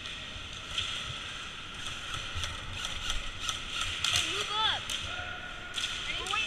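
Airsoft guns firing: scattered sharp cracks and clicks, bunched together around four seconds in and again near the end, over a steady high background drone, with brief distant shouts.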